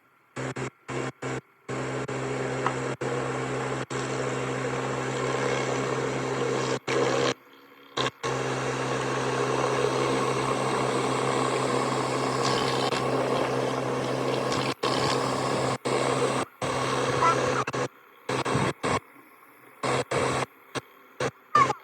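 Pressure washer running steadily, a low machine hum under the hiss of the water spray, cutting out abruptly to near silence many times, most at the end.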